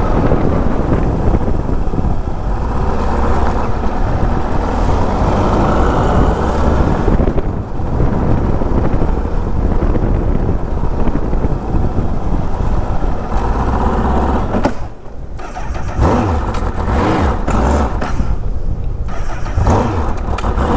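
A 2012 Honda CBR1000RR Fireblade's inline four-cylinder engine running as the motorcycle is ridden at street speed. The sound drops briefly twice, about a third and three-quarters of the way through.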